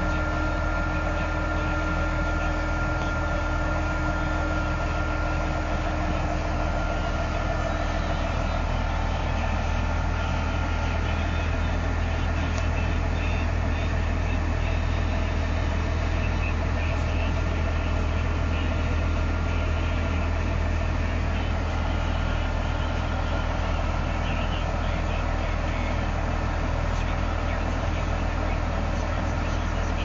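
Tractor engine running steadily while pulling a disk harrow through a field, a constant low drone with no change in speed.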